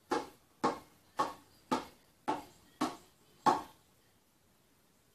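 A hand slapping a spinning inflated ball to keep it turning: seven sharp slaps about every half second, each trailing off briefly, stopping about three and a half seconds in.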